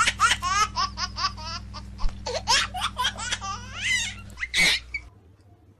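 A person laughing hard: a fast run of high-pitched ha's that stops about five seconds in, over a steady low hum.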